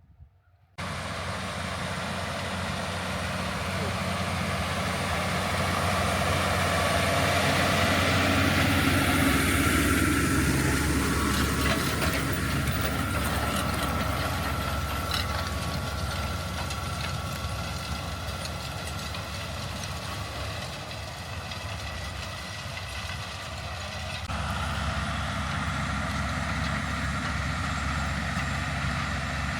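Heavy farm machinery engine running steadily, cutting in suddenly about a second in, its level swelling and easing slightly over the following half-minute.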